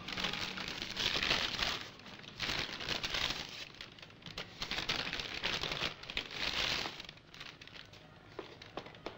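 A paper fast-food bag rustling and crinkling as it is unfolded and rummaged in, in several loud bursts over about seven seconds. It then goes quieter, with a few light taps near the end.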